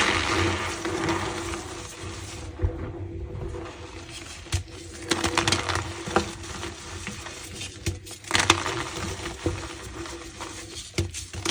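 A reformed block of gym chalk being crushed, giving a dry, gritty crunching with squeaks and sharp little clicks. It comes in several bouts, with a short lull about two and a half seconds in.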